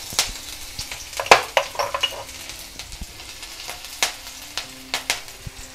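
Ground green chilli sizzling in hot oil in a stainless-steel kadhai, stirred with a spatula that scrapes and knocks against the pan several times, the sharpest knock about a second in.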